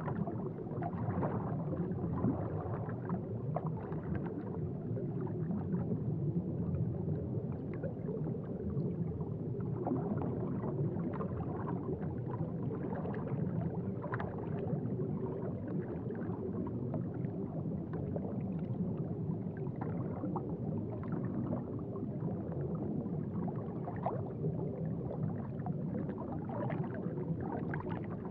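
Aquarium water bubbling and gurgling: a steady low rush with frequent small pops of bubbles.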